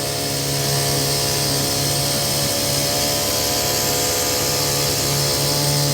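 Heavy diesel machinery at a concrete pour running steadily: an even engine hum with a whine layered over it, holding the same pitch throughout.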